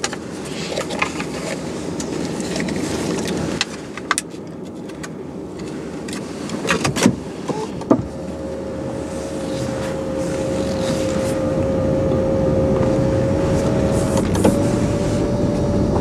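Tesla Model S electric car setting off and driving slowly, its rolling noise building up. A few knocks and clicks come in the first half, and a steady whine sets in about halfway and steps up slightly near the end.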